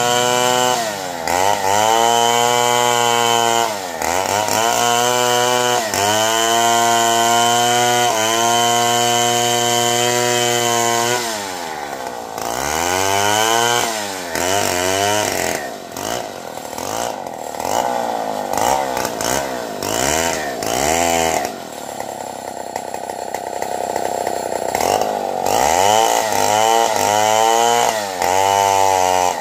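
Chainsaw cutting through a felled durian trunk. The engine pitch sags each time the chain bites into the wood and climbs back as it frees, with quicker rises and falls midway and a short steady high stretch before it bogs into the cut again.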